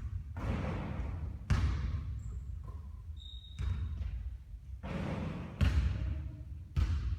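Basketball thudding on the court during three-point shooting practice: about six sharp bounces at uneven spacing, over a steady low rumble.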